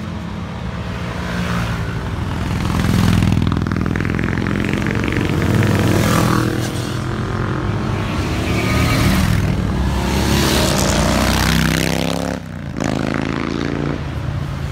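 Several motorcycle engines running and revving, their pitch rising and falling as the sound swells and fades several times, with a brief drop near the end.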